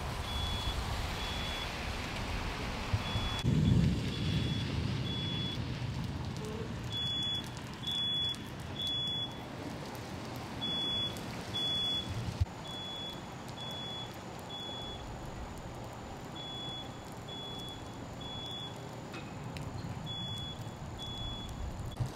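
Steady rain, with a high-pitched electronic alarm beeping a little more than once a second. A low rumble swells briefly about four seconds in.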